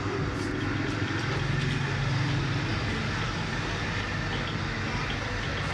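Brake-disc lathe running with a steady hum, no cut being taken.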